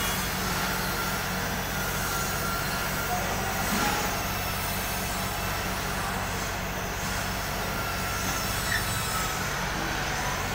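Mini excavator's diesel engine running steadily under load, with faint high whining from its hydraulics as the arm lowers a slung towable air compressor to the ground. A single knock about four seconds in.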